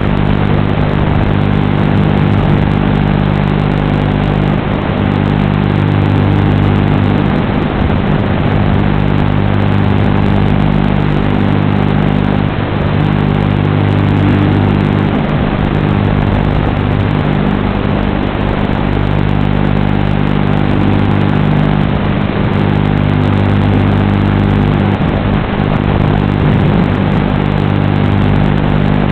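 Steady low buzz over loud hiss that holds the same pitch throughout, without the rising and falling whine that motors changing throttle would make. This is typical of noise on the audio channel of an analog FPV video link.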